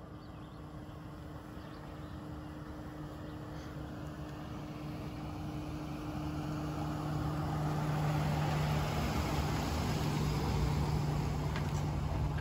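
Nissan Frontier pickup towing a small sailboat on a trailer, driving slowly toward and up close past: a steady engine hum and tyres rolling on asphalt. The sound grows louder for about eight seconds, then stays loud as the truck comes alongside.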